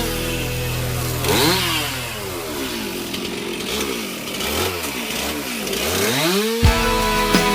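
Chainsaw cutting wood, its engine revving up and down over and over, the pitch rising and falling in repeated swoops. Music is heard faintly at the start and comes back near the end.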